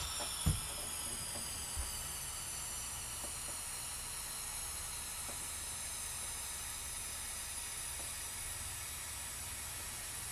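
Helium hissing steadily out of a disposable helium tank's nozzle into a latex balloon as it inflates, with high whistling tones that slowly fall in pitch as the balloon fills. A soft knock sounds about half a second in.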